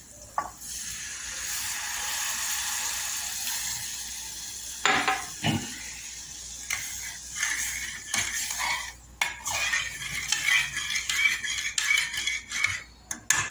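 Milk poured into a hot pot of fried spice paste, sizzling with a steady hiss for the first few seconds. Then a metal spoon stirs and scrapes against the metal pot with clinks and knocks.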